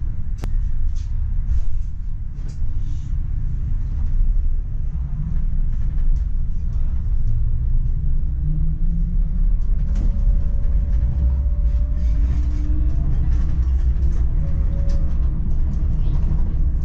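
Steady low rumble of a PESA Swing 122NbT low-floor tram running along the track, heard from inside the driver's cab, with a couple of sharp clicks. From about eight seconds in, a faint whine comes in and rises slightly in pitch.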